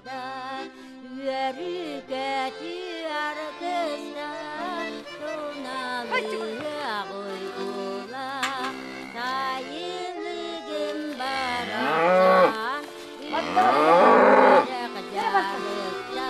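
A cow mooing twice near the end, each call about a second long and rising in pitch, the loudest sounds here. Background music with a melodic line plays throughout.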